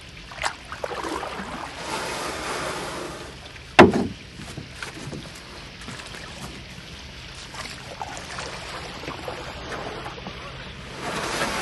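Paddle strokes swishing and splashing in the water beside an inflatable kayak, with one sharp knock about four seconds in, the loudest sound.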